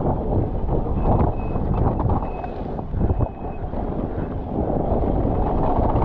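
Wind buffeting a helmet- or bike-mounted GoPro microphone as a mountain bike rolls down a rough trail, with tyre rumble and knocks and rattles from the bike. A faint thin whine comes and goes in the first half.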